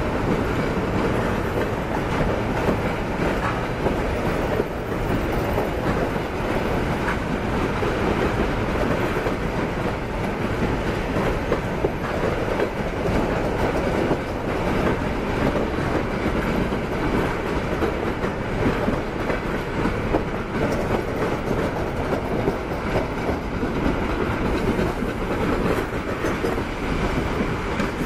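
Double-deck passenger coaches rolling past on the track, a steady rumble of wheels on rail with a clickety-clack as the wheels run over the rail joints.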